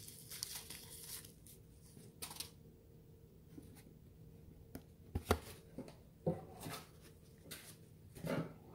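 Handling noises from a small paper desiccant packet and a cardboard box with a foam insert. Brief rustles and scattered light knocks and thumps, the strongest about five seconds in and near the end.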